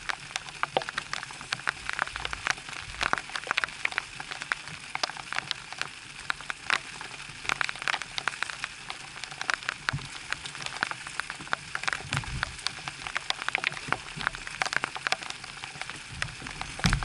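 Light rain falling, with many sharp, irregular raindrop ticks close by.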